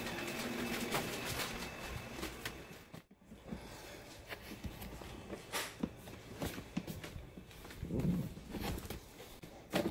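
Faint scattered knocks, clicks and rustles of packaged items and a cardboard box being handled and moved about.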